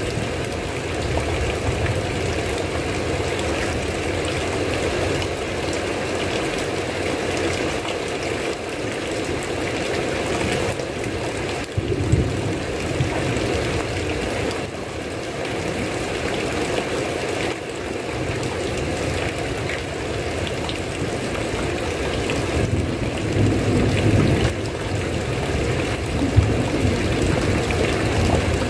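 Steady heavy rain, with low rumbles of thunder swelling a few times, around the middle and again near the end.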